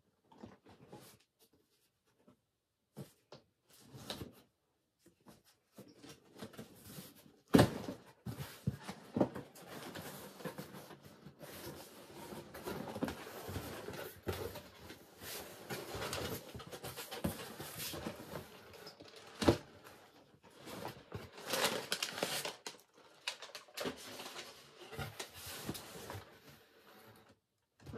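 Cardboard subscription box being opened and unpacked: the lid and cardboard inserts are handled and the packing inside rustles and crinkles in uneven bursts, with two sharp knocks, one about a quarter of the way in and one about two-thirds of the way in.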